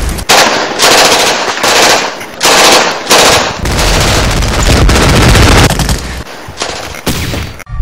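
Heavy machine-gun fire in long bursts with short breaks between them. It cuts off abruptly near the end.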